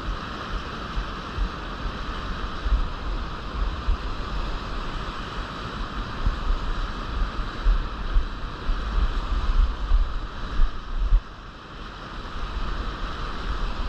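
Rushing whitewater of shallow river rapids, a steady hiss, with wind buffeting the microphone. The buffeting drops out briefly about eleven seconds in.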